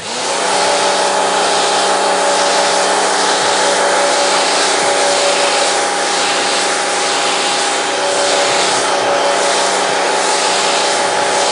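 Humbee WE-H1900 pressure washer running steadily. Its pump motor hums at one constant pitch under the loud hiss of the water jet spraying a rubber floor mat.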